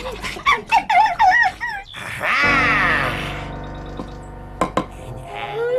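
Cartoon soundtrack: a run of squeaky, warbling voice-like sounds, then held musical tones with a few sharp clicks.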